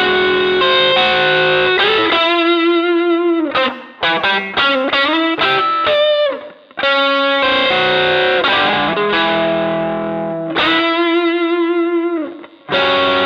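Electric guitar played through an MXR Dynacomp compressor pedal: chords and single notes held long and even, some with vibrato, with short breaks between phrases.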